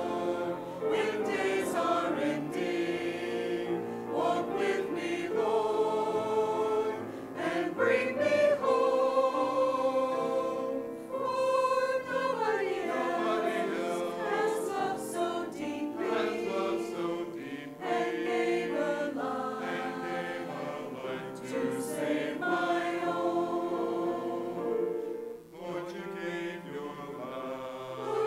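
Mixed church choir of men and women singing an anthem together, holding long notes and chords.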